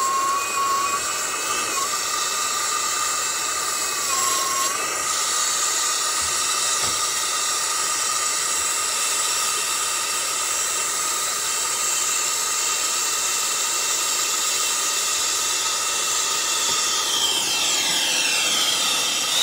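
Brazing torch flame running with a steady hiss and a whistling tone that shifts in pitch a few times, as it heats a brazed joint until the braze flows to unsweat the TXV's small tube from the big tube.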